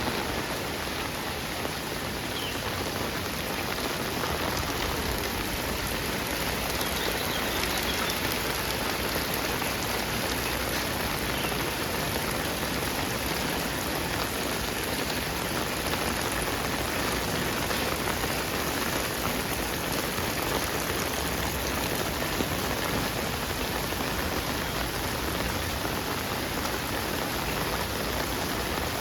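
Heavy rain falling and splashing on hard surfaces, a steady even rush.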